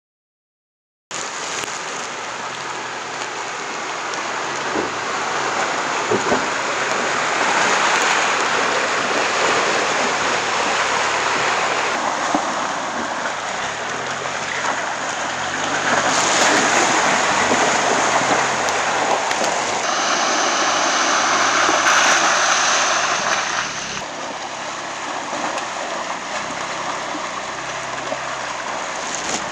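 Ford Bronco Everglades tyres splashing and churning through muddy trail water, a steady rushing spray of water with the engine running low underneath. It starts about a second in and changes abruptly several times.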